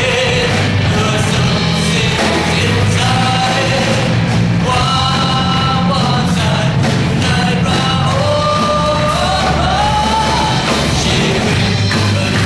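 Live worship song: a male lead vocalist singing into a microphone over an amplified band with a steady bass line.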